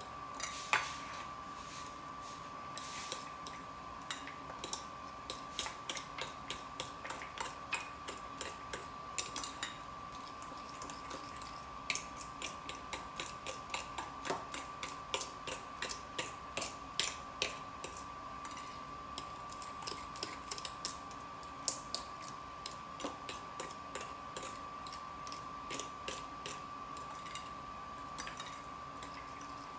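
Metal spoon stirring wet banana bread batter in a ceramic bowl, knocking and scraping against the bowl in quick runs of light clinks. A faint steady high whine sits underneath.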